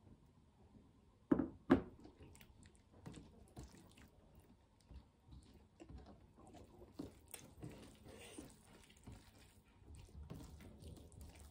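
Two sharp knocks about a second and a half in as a ceramic bowl is set down on a table. Then soft wet squelching and faint clicks of fingers mixing runny nettle dal into maize rice on a brass plate.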